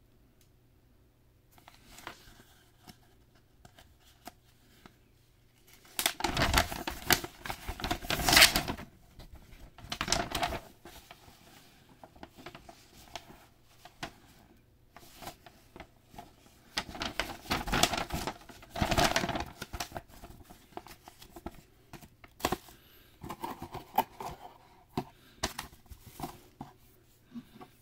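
Packaging being handled and unwrapped: rustling and crinkling with scattered clicks and taps. Two louder stretches begin about six and about seventeen seconds in.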